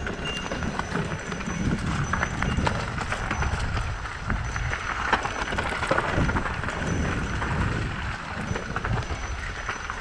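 Mountain bike descending a rough dirt trail: tyres rolling over bumpy ground with many quick clatters and rattles from the bike, over a steady low rumble.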